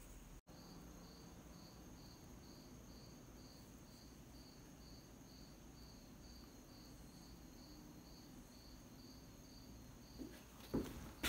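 A cricket chirping faintly in a steady rhythm, about two or three chirps a second. A couple of soft knocks sound near the end.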